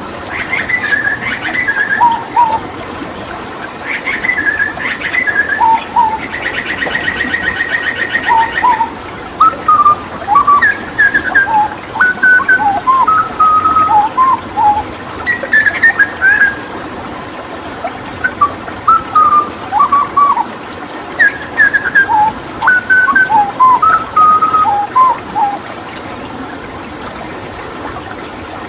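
Hooded butcherbird singing short phrases of clear, fluted whistles that jump up and down in pitch, with a fast rattling run of one repeated note lasting about two seconds, about six seconds in. A steady rush of running water carries on underneath.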